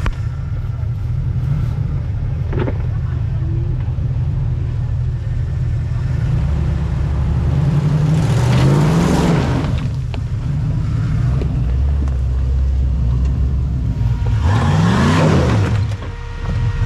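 Ford Bronco's engine running low and steady as it crawls over rocks, revved up and back down twice, about eight seconds in and again near the end, with a rush of noise each time.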